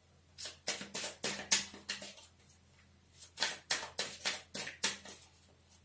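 Tarot cards being handled on a table: two quick runs of about six crisp card snaps and slaps each, about four a second, with a pause between them.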